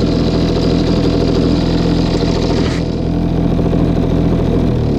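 Sea-Pro T3S single-cylinder two-stroke outboard motor running steadily, its pitch dropping near the end as it slows down.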